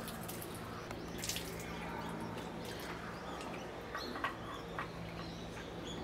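Water poured from a ladle splashing and dripping into a stone temple purification basin, with one splash about a second in and a few small drips and taps later. Birds chirp in the background.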